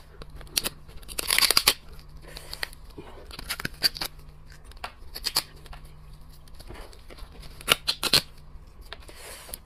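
Cooked lobster shell cracking and crackling as it is pulled apart by hand and bitten, in several short bursts of sharp crackles.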